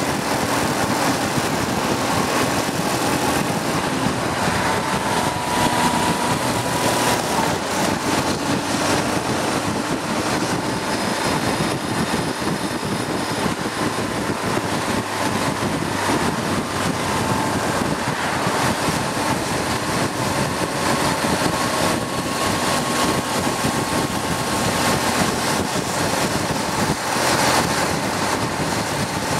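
Steady rush of wind and road noise from a vehicle in motion, with a faint engine tone underneath that drifts up and down in pitch.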